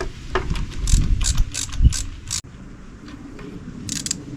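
Ratchet wrench clicking in short runs while a spark plug is loosened and backed out of the engine.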